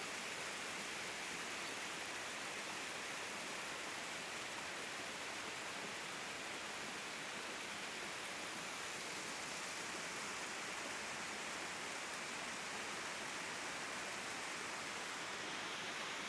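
Steady, even rushing of distant running water, with no breaks or changes.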